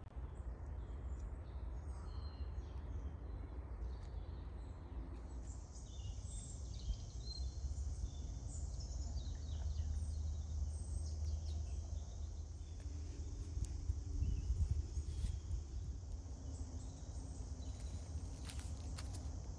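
Outdoor forest ambience: scattered short bird chirps over a low, steady rumble, with a few faint clicks near the end.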